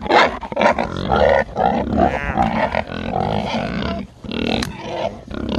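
Several feeder pigs grunting and squealing over one another, a dense run of calls with a higher-pitched squeal about two seconds in. They are hungry and waiting to be fed.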